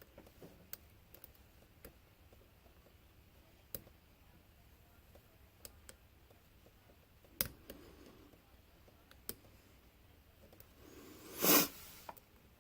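Faint scattered clicks of a lock pick and tension wrench working the pins of a pin-tumbler lock, the small clicks of pins being lifted and set. A sharper click about 7.5 s in, and a brief louder burst of noise near the end.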